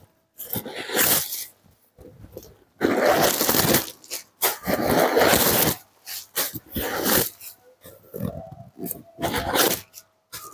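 A genuine-leather sling bag being handled and unzipped: rustling and rubbing of the leather in irregular bursts of about a second each, with short pauses between them.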